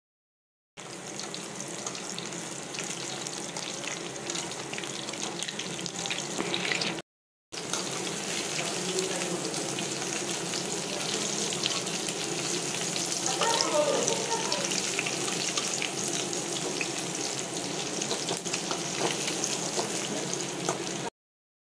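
Chicken pakoda pieces deep-frying in hot oil in a kadai: steady sizzling and bubbling, cut off briefly about seven seconds in.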